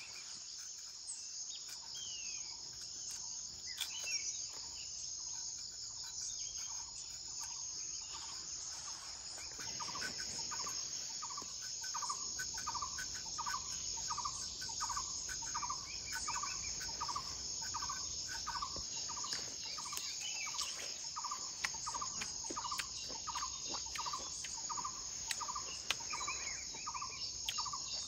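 A steady high-pitched drone of insects, joined about a third of the way in by an animal repeating one short call note over and over, about three notes every two seconds.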